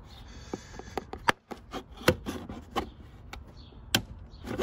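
Plastic trim removal tool prying at the MK5 VW GTI's rear interior side trim panel: a series of sharp plastic clicks and knocks, a few of them loud.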